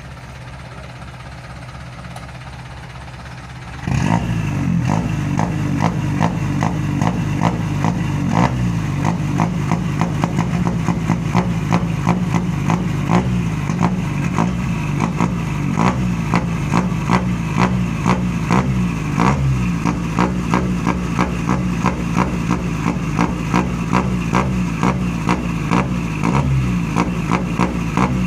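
Vehicle engine running through a loud aftermarket exhaust: quieter at first, then about four seconds in it jumps sharply in loudness and stays loud, with a rough, uneven stream of sharp pops from the exhaust.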